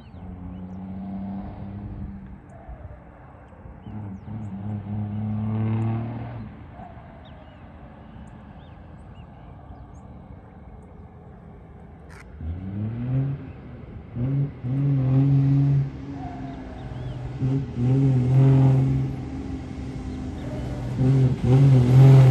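Diesel box truck with a modified exhaust accelerating, its engine note climbing repeatedly as it pulls through the gears. It grows louder as it approaches and is loudest near the end.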